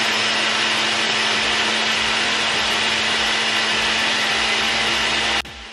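Countertop blender running at speed, puréeing mango pieces: a loud, steady whir with a constant hum beneath it, dropping off abruptly about five seconds in.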